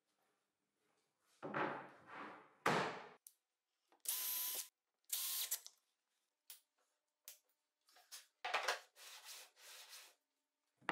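Short separate workshop sounds: rubbing and a sharp knock as a board or rail is handled on the bench, then two brief runs of a cordless drill driving screws, and near the end a cluster of short scraping, rubbing strokes of wood on wood.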